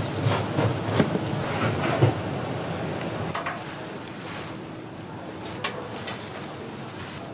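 Working kitchen clatter: a steady background din with scattered knocks and clicks, busier and louder in the first three seconds, then quieter with a faint steady hum.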